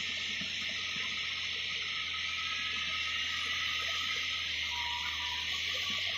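Volvo EC330B LC excavator's diesel engine running steadily as a low hum, under an even high-pitched hiss.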